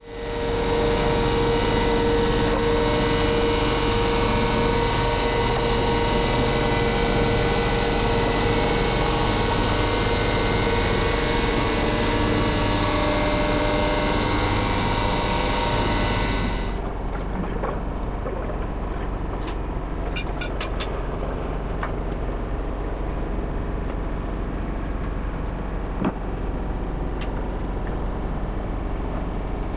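Matterson lifting jacks running steadily with a whine as they raise a steam locomotive's frames, stopping abruptly about 17 seconds in. A lower hum follows, with a few light clicks and a single knock.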